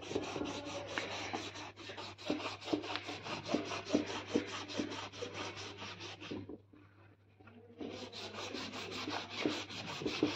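A folded sheet of 400-grit sandpaper is rubbed by hand in quick back-and-forth strokes over a black car bumper, sanding out scratches and scuffing the surface so body filler will take. The rubbing stops for about a second past the middle, then starts again.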